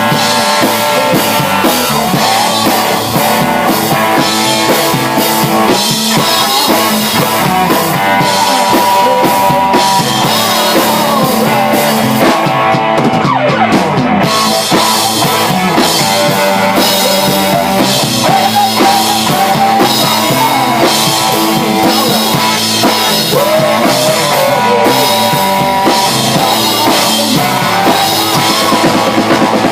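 A rock band rehearsing: drum kit and guitar playing loudly.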